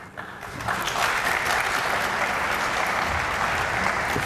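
Audience applauding, the clapping swelling in under a second in and holding steady.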